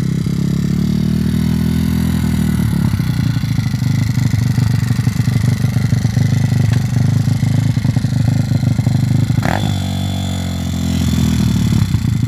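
Zongshen 160cc single-cylinder four-stroke pit bike engine running on the throttle, its exhaust popping and crackling rapidly, a sign that the exhaust may be coming loose at the manifold. The revs drop briefly about ten seconds in and then pick up again.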